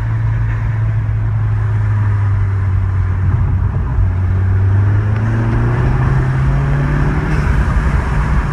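MK7 Volkswagen Golf GTI's turbocharged 2.0-litre four-cylinder engine, fitted with a CTS turbo cold air intake, running under way: a steady low drone that rises a little in pitch from about halfway as the car gathers speed.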